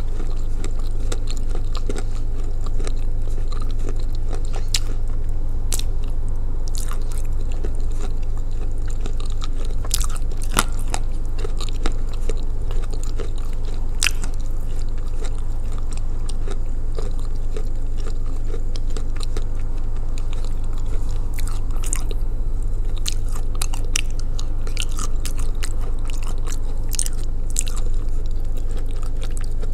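Close-up chewing and crunching of edible clay, Ural clay soaked in blue Uzbek clay, with sharp crunches and mouth clicks scattered throughout over a steady low hum.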